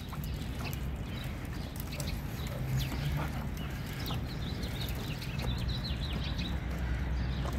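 A dog leaping at and tugging a cloth-wrapped rubber ball hanging from a springpole strap, with scattered soft thumps and scuffles, over a steady low rumble and short high chirps.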